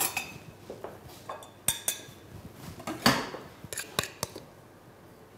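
Crockery and utensils clinking: a metal spoon and glass bowl knocked against each other and set down among dishes on a worktop. A ringing clink at the start, scattered knocks, and a quick run of sharp clinks about four seconds in.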